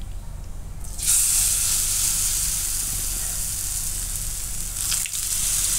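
Wheat-flour handvo batter spooned into hot oil with mustard and sesame seeds in a kadai, setting off loud sizzling about a second in. The sizzling briefly dips near the end, then picks up again.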